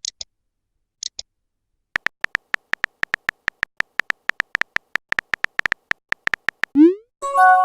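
Messaging-app sound effects: two short high blips, then a run of phone-keyboard tap clicks, about six a second for nearly five seconds. Near the end comes a quick rising swoosh and a short chime, like a message being sent.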